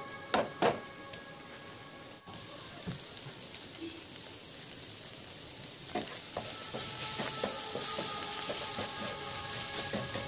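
Beetroot strips and soybean chunks sizzling in a non-stick frying pan with a steady hiss. A spatula stirs and scrapes them, with a few sharp knocks near the start and stirring scrapes and ticks again from about six seconds in.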